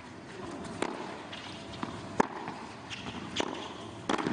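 Tennis ball struck by racquets in a doubles point on a hard court: three sharp pops about a second and a half apart, with fainter knocks between them.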